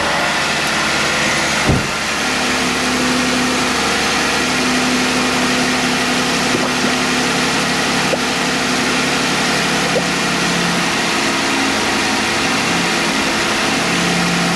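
2015 Jeep Wrangler JK's 3.6-litre Pentastar V6 idling steadily just after start-up, run at idle to circulate new coolant and purge air from the cooling system after a thermostat replacement. A short thump about two seconds in.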